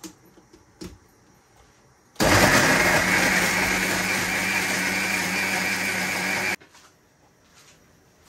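Electric mixer grinder (mixie) running at full speed for about four seconds, grinding soaked dried red chillies into a paste. It starts suddenly about two seconds in and cuts off sharply. A few faint knocks come before it.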